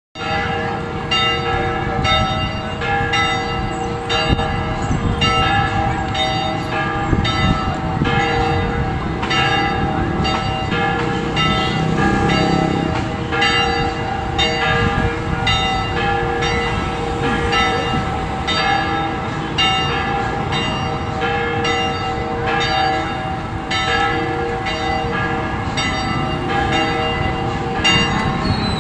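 Church bells ringing, struck repeatedly at an even pace, each stroke ringing on into the next with a steady lingering hum, over a low background rumble.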